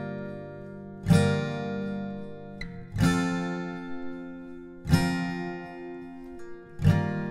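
Background music: slow guitar chords strummed about once every two seconds, each left to ring and fade before the next.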